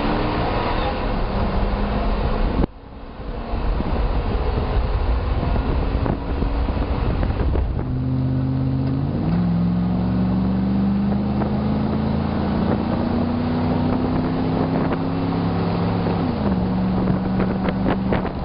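Exhaust of a Chevy Silverado's 5.3L V8 through its stock muffler, heard from the truck bed while driving, with wind noise on the microphone and a low rumble. The engine note rises slowly and drops back once near the end. The sound dips suddenly for a moment about three seconds in.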